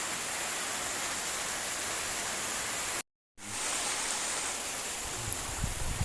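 Steady hiss of rain falling, cutting out completely for a moment about halfway through, with a few low thumps near the end.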